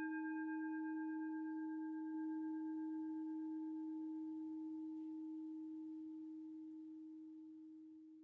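A singing bowl ringing out after being struck: one low, steady note that slowly fades, its higher overtones dying away first.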